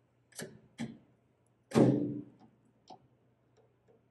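Hand riv nut tool clicking and knocking against the aluminium skin of a vertical stabilizer while a riv nut is set: two sharp clicks, then a louder knock with a short metallic ring near the middle, and a few softer ticks.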